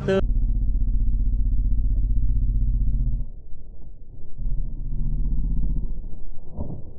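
Camera audio slowed down to match slow-motion video: the ambient sound is stretched into a deep, muffled drone with a low hum. It drops out briefly a little after three seconds, then resumes, with a short swell near the end.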